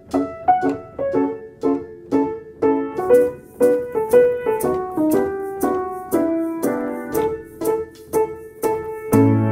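Background music: a piano melody in short, bouncy notes, with a light ticking beat joining about three seconds in.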